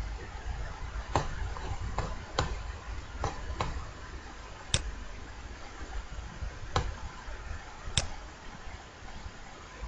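Computer mouse clicks: about eight sharp, separate clicks at irregular intervals over a low steady hum.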